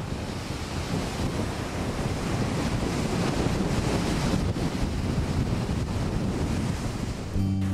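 Heavy storm surf breaking and washing in white water over a rock shelf, a steady loud roar with wind buffeting the microphone. Near the end a sustained music chord comes in.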